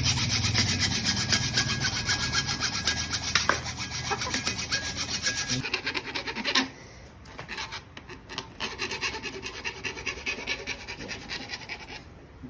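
Hacksaw cutting through a metal bicycle tube by hand, in fast, steady back-and-forth strokes. About halfway through the sawing drops off sharply and carries on much quieter.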